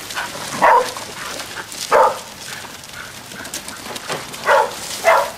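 Dog barking four short, loud barks, spaced unevenly over a few seconds.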